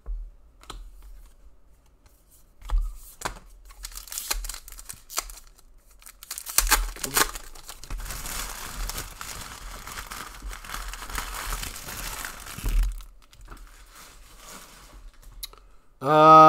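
A trading card pack being torn open, its wrapper rustling and crinkling for about five seconds after a few light handling clicks.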